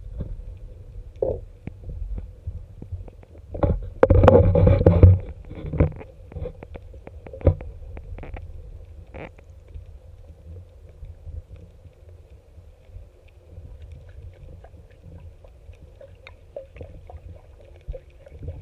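Muffled low rumble and scattered knocks and clicks of a camera filming under water, with a louder burst of noise lasting about a second, about four seconds in.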